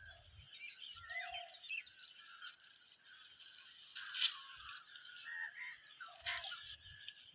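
Birds chirping and twittering over a steady high hiss, with two sharp snaps about four and six seconds in from a sickle cutting through dry crop stalks.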